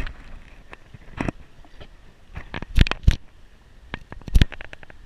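Fingers handling an action camera's housing right at its microphone: a series of irregular taps and knocks, the loudest a pair about three seconds in and another past four seconds.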